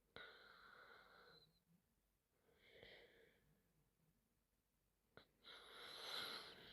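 A sleeping woman's soft breathing: three faint breaths, near the start, about three seconds in, and near the end, with a small click just past five seconds.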